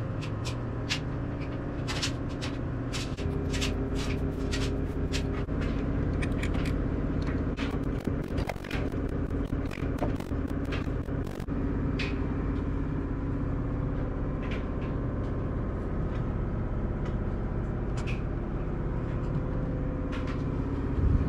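Screwdriver and small metal and plastic parts clicking and tapping as shock absorbers are unbolted and pulled off a Losi 8ight RC buggy's shock tower. The clicks come thick and fast for the first half and sparser after, over a steady low hum.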